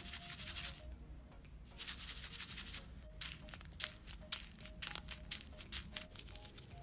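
Wet floral foam being crushed by hand, crackling and crumbling. It starts in two longer bursts and breaks into many short, sharp crackles after about three seconds. Soft background music plays underneath.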